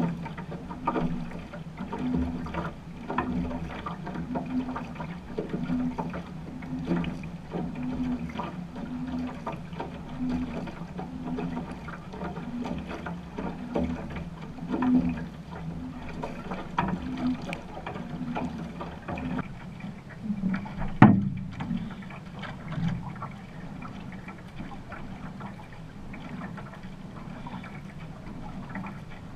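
One-person outrigger canoe being paddled: the paddle blade pulls through the water in a steady rhythm, a little more than once a second, over water washing along the hull. About two-thirds through comes a single sharp knock, after which the water wash goes on more evenly.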